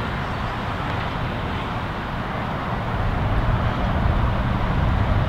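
Steady rumble of road traffic, growing a little louder in the second half.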